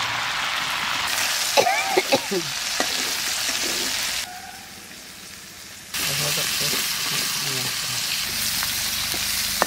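Sliced onions sizzling as they hit hot oil in an iron kadai and fry, stirred and scraped with a metal spatula. The sizzle quietens for a couple of seconds midway, then comes back at full strength.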